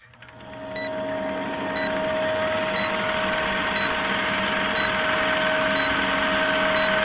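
Vintage film-countdown sound effect: a film projector's steady whirr and crackle with a constant steady tone, fading in over the first couple of seconds, and a short high beep about once a second as the numbers count down.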